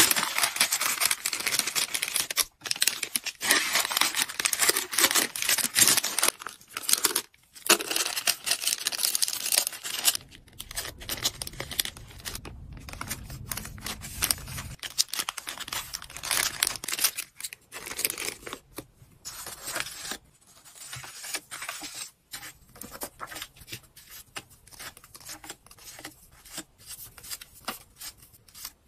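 Paper and plastic packaging rustling and crinkling in the hands as small items are slid into a translucent paper bag and sheets of stationery are handled. The rustling is busiest for the first ten seconds or so, then turns softer and broken, with small taps.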